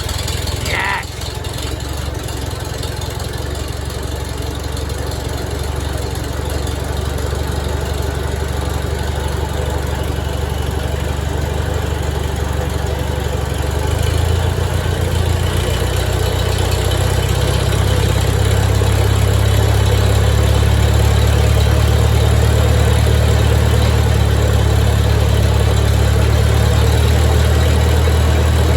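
A vehicle engine running steadily at low revs, with a deep hum that grows louder about 14 seconds in and again about 18 seconds in.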